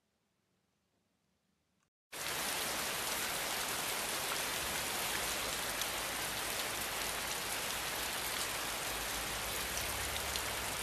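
Near silence, then about two seconds in a steady, even rush of flowing creek water starts abruptly and runs on unchanged.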